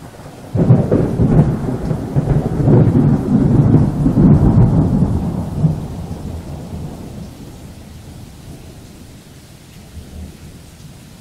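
Thunderclap sound effect: it starts suddenly about half a second in, rumbles loudly for about five seconds, then fades slowly over a steady hiss of rain.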